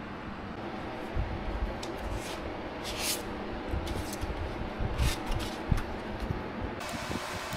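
Large sheets of paper being handled and shifted on a cutting mat: brief rustles and a few light knocks on the bench, over a steady fan-like hum.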